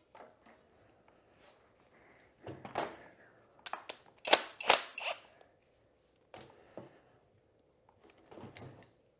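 Clicks and knocks of hands working a motorcycle brake caliper with a hand tool. The sharpest two come close together a little past four seconds in.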